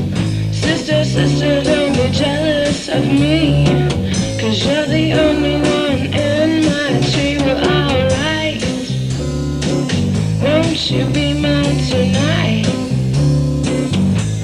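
1954 Harmony Stratotone electric guitar playing a blues-style lead, with bent, wavering notes over a fuller low accompaniment.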